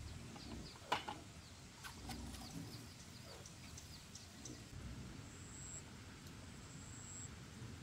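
Small birds chirping in quick, repeated short calls, with a single sharp knock about a second in. Later a high, thin steady tone comes and goes a few times.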